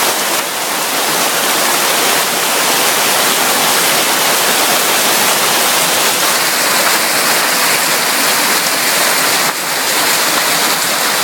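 Torrential rain pouring down in a steady, loud rush.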